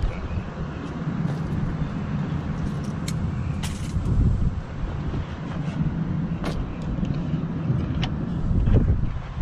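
Steady low rumble of a motor vehicle, with a handful of sharp clicks scattered through as small plastic door-trim covers are pried out with a pick.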